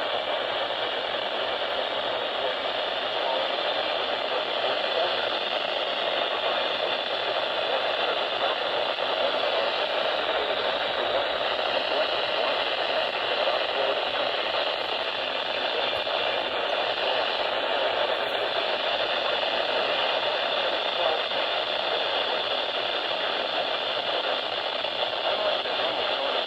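Steady hiss of radio static from a weather radio receiver, with no voice or alert tones coming through.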